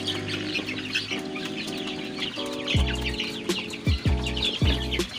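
Many chickens calling over background music: short high peeps from chicks mixed with hen clucking, under a tune of held chords that picks up a deep electronic kick drum about three seconds in.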